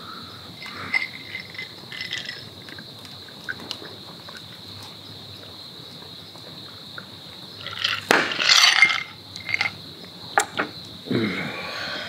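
Insects singing in a steady high trill. Short clinks of ice in a glass come through it, with a louder clatter about eight seconds in.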